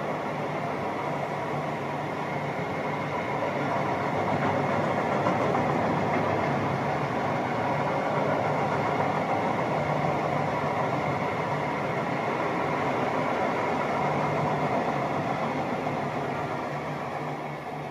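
A train running steadily: a continuous rumble with a faint hum. It grows louder a few seconds in, holds, and eases off near the end.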